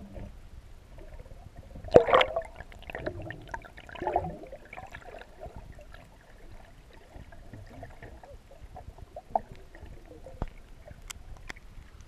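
Water sloshing and gurgling around a diver dredge nozzle being moved through shallow water, heard muffled through a GoPro's waterproof housing. A loud splash comes about two seconds in, a smaller one near four seconds, and a few sharp clicks near the end.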